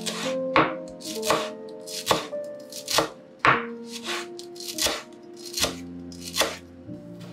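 Chef's knife chopping fresh parsley on a bamboo cutting board, the blade knocking the board about once every three-quarters of a second, with soft background music underneath.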